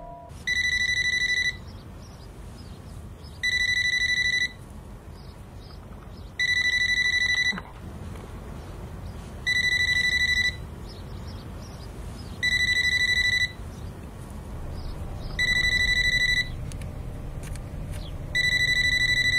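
Mobile phone ringing: a warbling electronic ring about a second long, repeated every three seconds, seven rings in all, over a low steady background noise.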